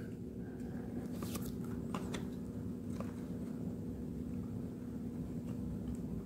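Faint paper handling: a few light ticks and rustles as a hand presses a glued cardstock diorama sheet flat, over a steady low hum.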